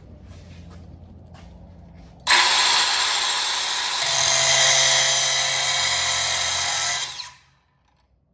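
DeWalt 43244N 6-inch angle grinder with a 6-inch cutoff wheel cutting. A loud, hissing grind starts abruptly about two seconds in, runs steadily for about five seconds, and then cuts off sharply.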